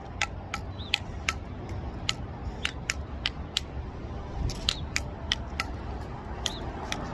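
Higgins Brothers devil stick being juggled: the centre stick is tapped back and forth by the two hand sticks in quick sharp clicks, about three a second, with a short break about halfway.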